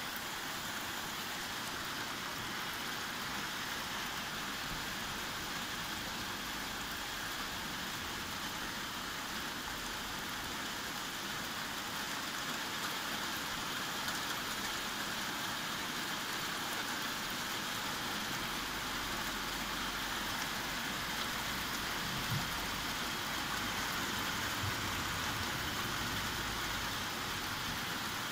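Steady rain falling, an even hiss of drops. From about two-thirds of the way in, a low rumble of distant thunder joins it.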